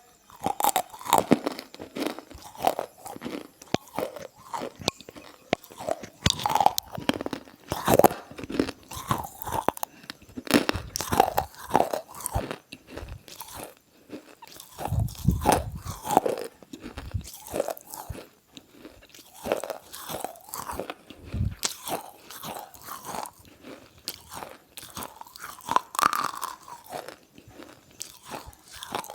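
A person biting and chewing something crunchy close to the microphone: irregular crisp crunches, with harder bites now and then.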